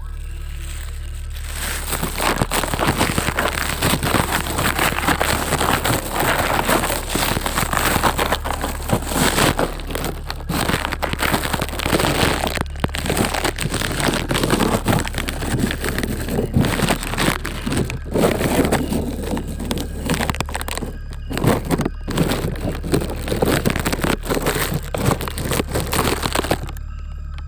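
Plastic bag crinkling and rustling close to the microphone as a phone is wrapped in it, a dense run of crackles and sharp clicks that starts about a second and a half in and stops shortly before the end.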